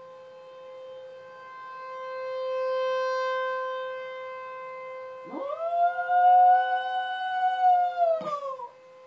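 Tornado warning siren holding one steady tone that swells and fades. About five seconds in, a small curly-haired dog joins with one long howl that rises, holds for about three seconds and falls away.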